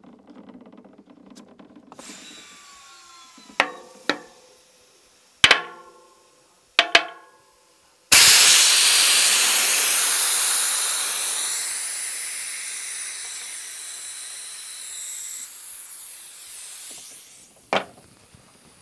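A few sharp, ringing clicks, then a sudden loud rush of air about eight seconds in as the charged chamber of a Topeak Joe Blow Booster track pump is released into a tubeless tyre to seat its beads. The hiss fades away over about eight seconds, and one more sharp click comes near the end.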